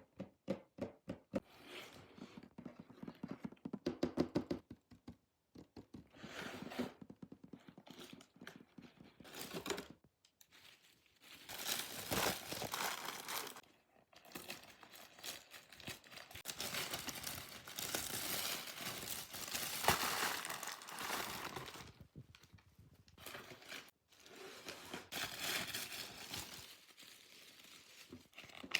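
Plastic packaging of an LOL Surprise toy being crinkled and torn open by hand. Sharp taps and clicks come first, then long stretches of crinkling.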